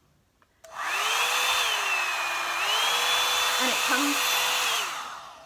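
Revlon One-Step hair dryer and volumizer brush switched on: its fan motor spins up to a steady whine over a rush of blowing air. The whine sags in pitch for about a second and climbs back, then winds down near the end.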